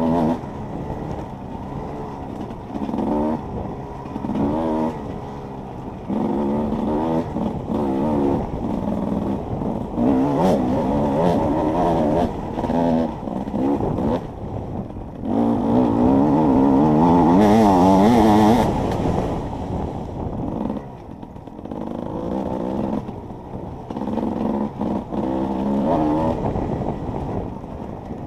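Enduro dirt bike engine revving up and falling back over and over as the throttle is opened and closed, with one longer, louder pull in the middle.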